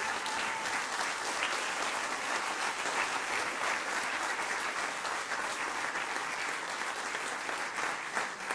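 Audience applauding, a dense steady clapping of many hands that keeps up throughout.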